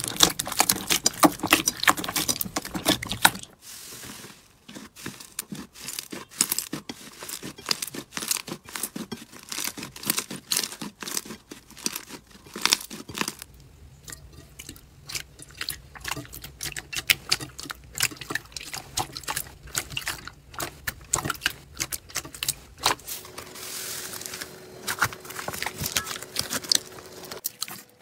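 Hands squeezing, pressing and stretching glossy slime in a bowl: a quick run of sticky squelches, small pops and crackles from air bubbles caught in the slime.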